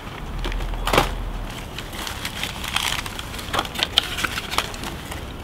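A sharp knock about a second in, then a run of crinkling and clicking from a paper bag wrapped around a bottle being handled.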